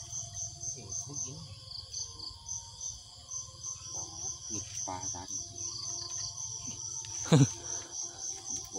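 Insects chirping in a steady, high, rapidly pulsing trill, with one brief loud thump about seven seconds in.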